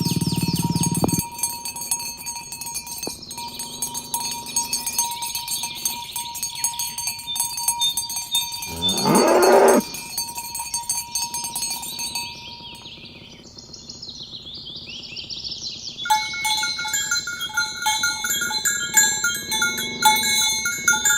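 A cow mooing once, a call of about a second that rises in pitch, about nine seconds in. Steady high-pitched tinkling and chirping runs underneath, growing busier and more chime-like near the end.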